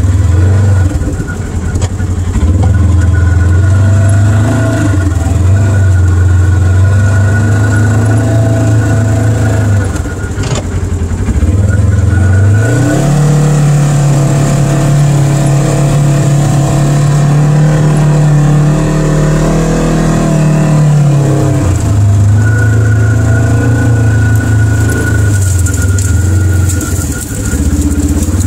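Polaris RZR side-by-side's engine running under way, heard from inside the open cab. About twelve seconds in the engine note rises and holds higher for roughly nine seconds, then drops back to its lower running pitch.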